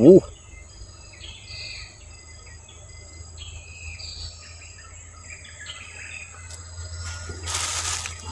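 Forest ambience: insects droning on one steady high note while birds give short repeated chirps. A brief loud pitched call comes right at the start, and a short rustling noise comes near the end.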